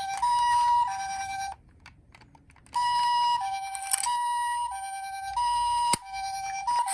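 Electronic two-tone Japanese ambulance siren, the high and low notes alternating about every half second, from a toy ambulance minicar. It stops for about a second, starts again, and there is a sharp click near the end.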